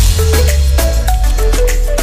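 Background music with a steady beat, short pitched notes and a heavy bass line.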